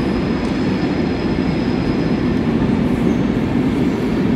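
A train's steady low rumble, with a faint high whine above it that fades out about halfway through.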